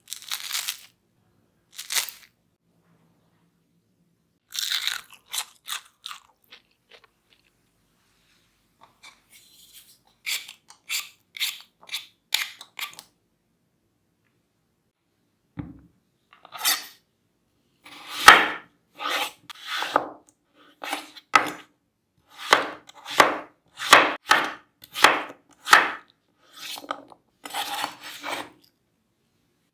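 A series of crisp crunches from crispy food: scattered at first, then loud, evenly spaced crunches about one a second over the last twelve seconds or so.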